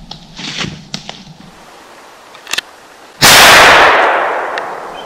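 A single rifle shot from a Savage A17 semi-automatic .17 HMR rimfire, fired up into a tree at a squirrel. It cracks suddenly about three seconds in, and its echo rings and fades through the woods over about a second and a half.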